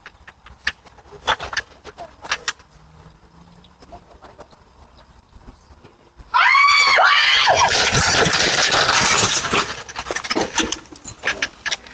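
A few scattered knocks and footsteps, then about six seconds in a sudden loud, high-pitched scream that falls in pitch and runs on into about three seconds of frantic shrieking from someone startled by an unexpected person in the house. The sound is picked up by a Ring doorbell camera's microphone.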